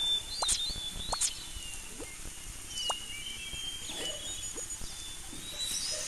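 Birds chirping: scattered short high chirps and quick rising calls over a faint noisy outdoor background.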